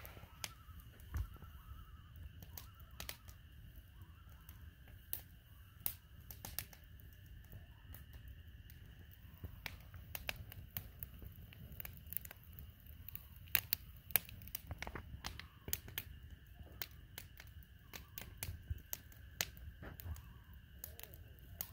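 Wood campfire crackling, with frequent irregular sharp pops and snaps of burning wood. A faint steady high-pitched drone runs behind it.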